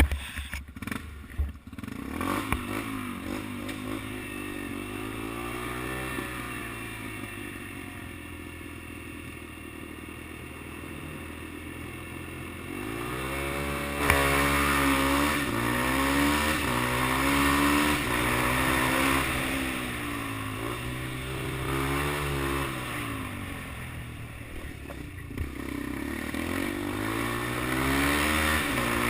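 Small dirt bike engine running and revving, its pitch rising and falling over and over as the throttle opens and closes, louder from about halfway through.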